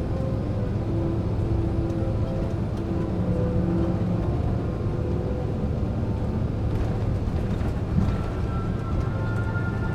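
Jet airliner cabin noise after landing: a steady low rumble from the engines and air systems, with a short knock about eight seconds in and a higher steady tone coming in shortly after.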